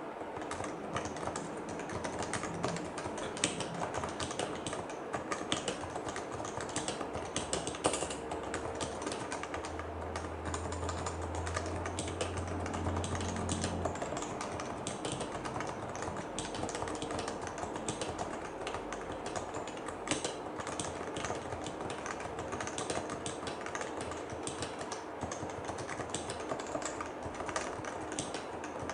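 Continuous typing on a Leopold FC660C compact keyboard with Topre electro-capacitive switches and PBT keycaps: a steady, irregular stream of keystrokes.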